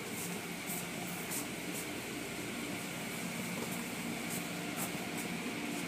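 Steady hum and hiss of automatic car wash machinery, with several short, faint high hisses along the way.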